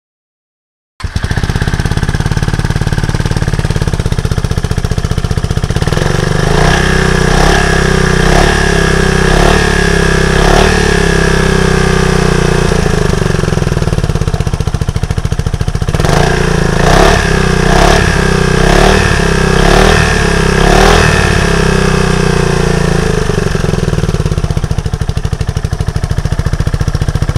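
Yamaha Majesty 400 scooter's single-cylinder four-stroke engine idling through a GPR slip-on exhaust, starting about a second in. Twice it is given a run of quick throttle blips, roughly one a second, then settles back to idle.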